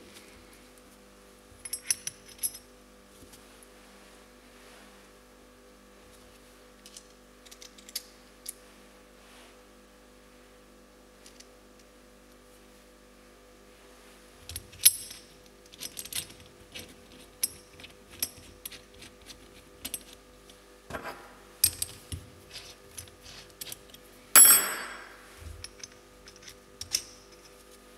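Small machined metal parts of a shop-made CNC lathe bar puller clicking and clinking as they are handled, fitted together and set down during assembly: a few light clicks at first, then a busy run of clinks from about halfway, the loudest a ringing clink near the end. A faint steady hum runs underneath.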